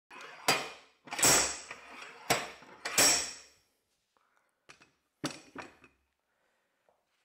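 Heavy slide hammer being worked against a diesel injector held in a bench vise: four loud metallic blows about a second apart, each ringing on. The injector is ripped out of the vise's grip, and a few lighter clanks follow as the freed hammer and injector land on the bench.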